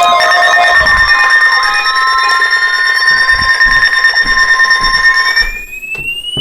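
Weather radio 1050 Hz warning alarm tone: a loud, steady single-pitch tone with higher steady tones and a slowly rising whine layered over it. The steady tones cut off about five and a half seconds in, leaving the rising whine.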